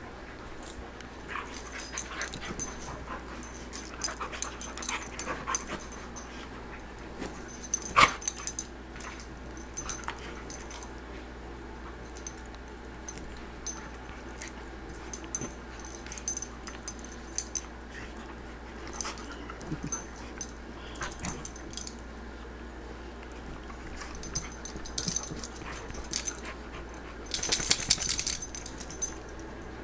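Two poodles play-fighting on a couch: short dog noises and scuffling come in irregular bursts, the loudest about eight seconds in and again near the end.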